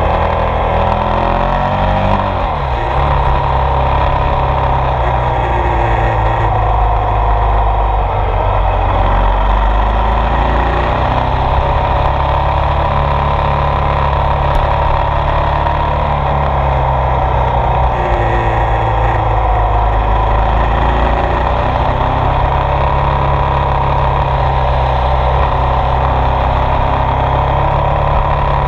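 Ducati Multistrada 1200 S DVT's 1198 cc Testastretta L-twin engine running under way. The revs drop about two seconds in, then rise and ease gently with the throttle.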